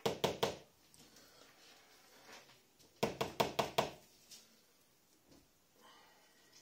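Two bursts of rapid knocking from the room above: four quick knocks, then about three seconds in, five or six more.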